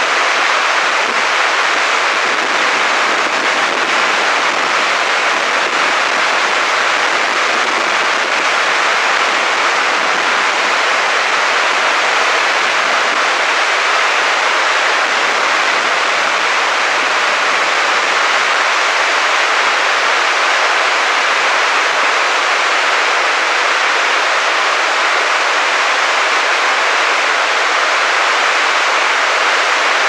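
Sandan Falls, a three-tiered waterfall, running: a loud, steady rush of falling water that does not change.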